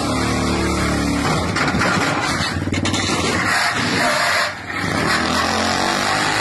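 VW Beetle engine running, with a brief drop in level about four and a half seconds in.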